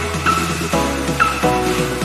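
Background music with a steady beat, a bass line and short falling synth swoops repeating.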